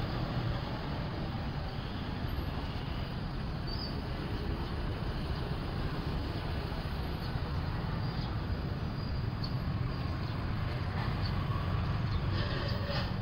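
Steady outdoor background noise: a continuous rumble, heaviest in the low end, with no single clear source. A few faint, short sounds come near the end.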